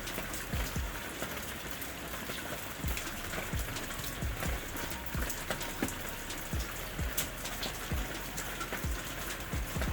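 Steady rain falling, an even hiss with irregular low thuds of drops about once or twice a second.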